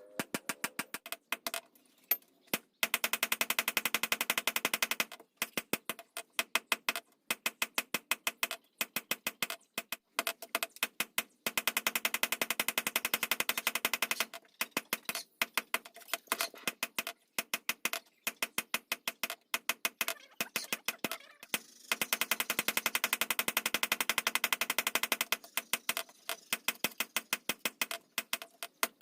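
Rapid hammer blows on metal, several a second, each ringing, coming in runs of a few seconds with brief pauses between.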